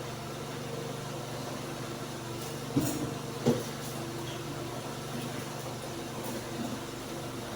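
Steady low motor-like hum, with two short knocks from the cooking pot about three seconds in.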